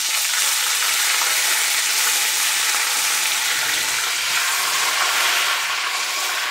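Hot browned butter in a skillet sizzling loudly and steadily, a spitting, aggressive sizzle.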